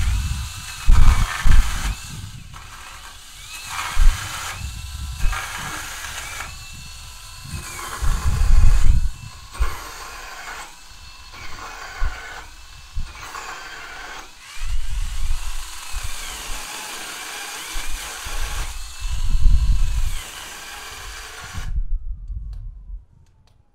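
Brushless 8-inch cordless mini chainsaw run in a dozen or so short bursts on the trigger, its motor whining up each time and its chain biting into a small tree branch with loud rumbling peaks. Near the end it cuts out abruptly: the battery has died without warning.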